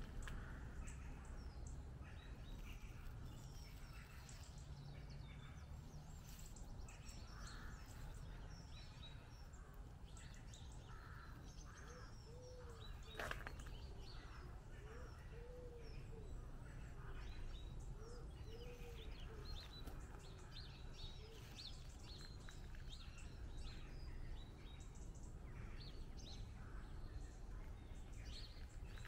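Quiet early-morning birdsong: small songbirds chirping and singing in scattered short phrases over a low steady rumble, with a low cooing call repeated a few times midway through.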